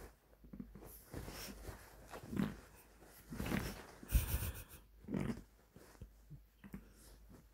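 A Munchkin fold cat playing under and against a bed quilt: irregular short sounds of its breath mixed with the quilt rustling, with one louder thump about four seconds in.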